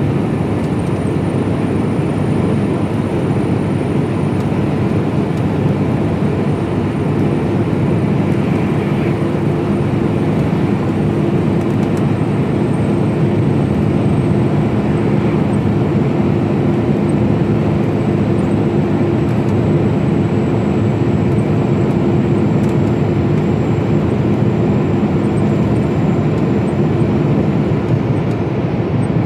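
Mercedes-Benz Actros lorry cruising at steady road speed, heard from inside the cab: a constant low engine drone with tyre and road rumble. A faint high whine sits above it and slowly drops in pitch.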